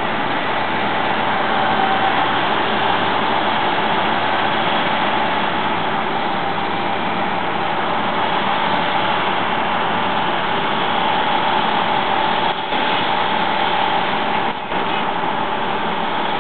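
Laverda AL Quattro combine harvester at work cutting wheat: its engine and threshing machinery run with a steady, dense drone and a constant high tone through it.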